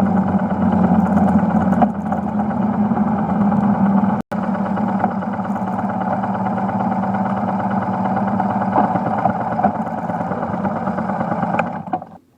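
BMW R1150GS air-cooled boxer twin engine running steadily, heard from a handlebar-mounted phone. The sound breaks off for an instant about four seconds in and cuts off just before the end.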